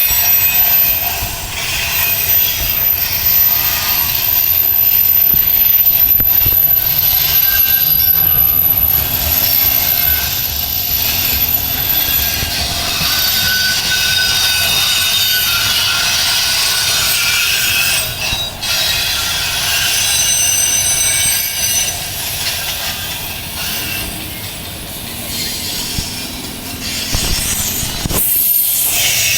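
Timber freight train rolling past very slowly, its steel wheels squealing on the rails in thin high tones over the low rumble of the wagons.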